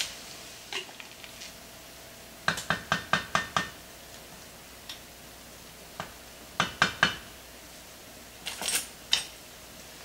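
Cooking utensils knocking and tapping against a skillet during stirring: a quick run of about six taps about two and a half seconds in, then shorter clusters of knocks later on.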